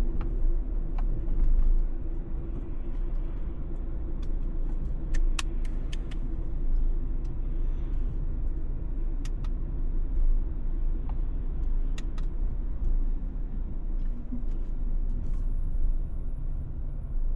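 Steady low rumble of a car's engine and road noise heard from inside the moving car, with a few faint clicks.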